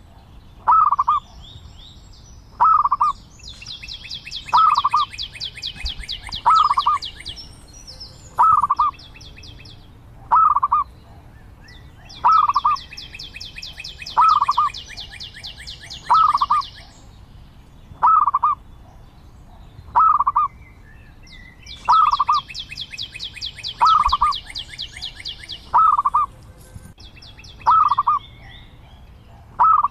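Zebra dove calling: a short call repeated roughly every two seconds, while a higher, fast-pulsed trill comes and goes three times behind it.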